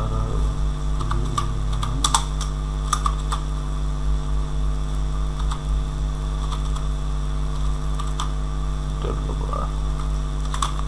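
Computer keyboard typing: scattered, irregular keystroke clicks over a steady electrical hum.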